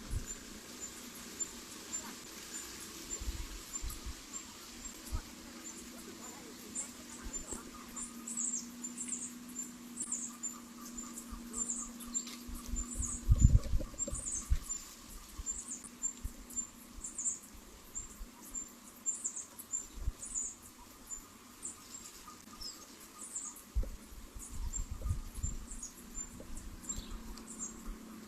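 Caged bird giving many short, very high chirps over an even high ticking about twice a second, with scattered low thumps, the loudest about halfway through.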